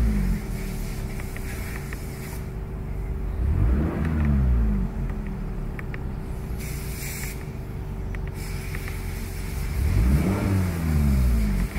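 2018 Toyota Camry SE engine idling, blipped twice, each rev rising and dropping straight back to idle. The first rev comes about three and a half seconds in, the second near the end.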